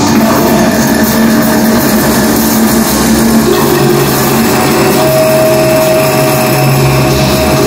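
Loud live electronic noise music from a laptop and effects setup: a dense, grinding wall of noise with held drone tones under it, the low drone shifting down partway through and a higher steady tone coming in about five seconds in.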